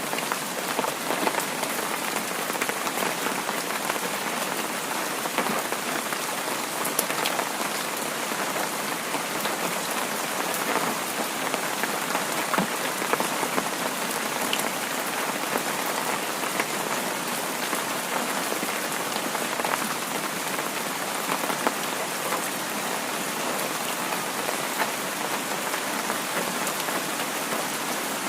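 Heavy rain falling steadily, a dense even hiss with the patter of many individual drops.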